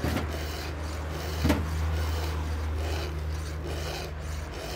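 A hand file rasping across the cutters of a Husqvarna 572XP chainsaw chain in repeated strokes, a little under a second apart, as the chain is sharpened. A sharp knock about a second and a half in, over a steady low hum.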